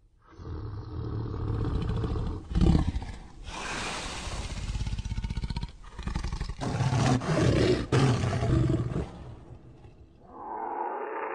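Reconstructed Smilodon (saber-toothed cat) vocalization, made by voice and digitally reworked from modern animal sounds. It is a series of growling roars: the loudest comes about two and a half seconds in, followed by a long roar and several shorter ones that fade out. A duller, muffled rumble begins near the end.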